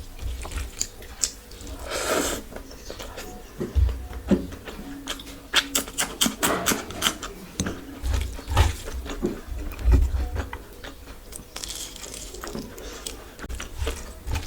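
Close-up chewing and wet mouth sounds of someone eating curry and rice, with irregular clusters of sharp smacks and clicks and a few low thuds.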